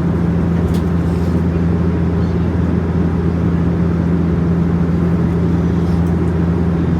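Steady drone of a jet airliner's cabin during descent: engine and airflow noise with a constant low hum.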